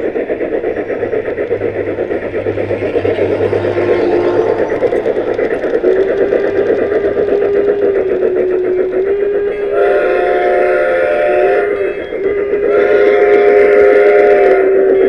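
Live-steam model locomotive running, its exhaust chuffing rapidly. A steam whistle comes in about six seconds in and blows two longer, fuller blasts, about ten and thirteen seconds in.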